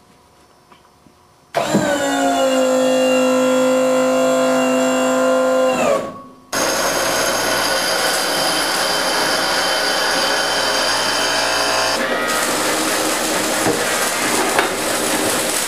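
A motor-driven tool or machine runs with a steady whine for about four seconds and winds down. After a short pause, a noisier machine sound with a high whine runs on and changes character near the end.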